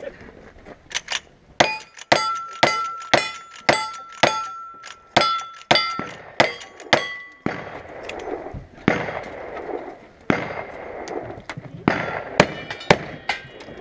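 Gunshots fired in quick succession, about two a second, with the ring of struck steel targets after them. After a pause of a couple of seconds, a few more shots follow.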